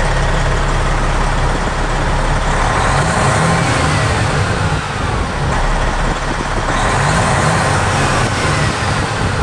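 Diesel engine of a 2000 Freightliner Century Class 120 semi tractor revved up twice from inside the cab, its pitch climbing and falling back each time.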